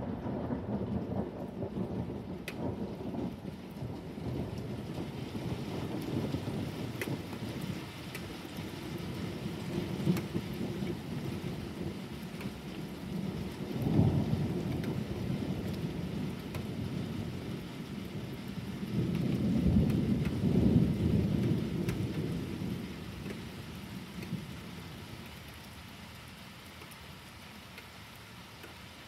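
Thunder rumbling over steady rain during a thunderstorm. A sharp crack comes about halfway through, a longer and louder rumble follows about two-thirds of the way in, and then it dies away, leaving the rain.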